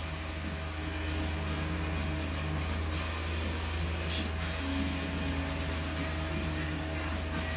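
A steady low machine hum, like a running fan or motor, with one brief sharp tap about four seconds in.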